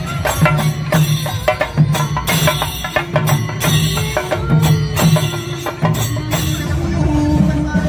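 Chenda drums beaten with sticks in a chendamelam ensemble with ilathalam cymbals: a fast, steady beat of sharp strokes over a pulsing low drum tone. About six and a half seconds in the strokes thin out and a held pitched tone comes through.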